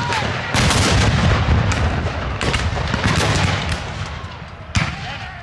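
Ragged gunfire from black-powder weapons firing blanks: many shots at uneven intervals, overlapping into a near-continuous rattle with a low rumble, thinning out near the end.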